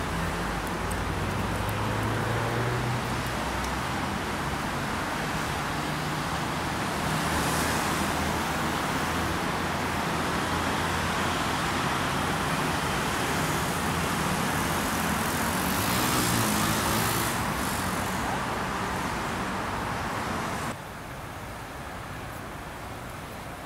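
Steady road traffic from a busy multi-lane road, cars streaming past, with two louder swells as vehicles go by. About three-quarters of the way through the sound drops suddenly to a quieter traffic hum.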